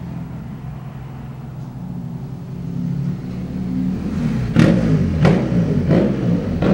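Background music: low sustained synth chords, with a steady drum beat coming in about four seconds in, roughly three beats every two seconds.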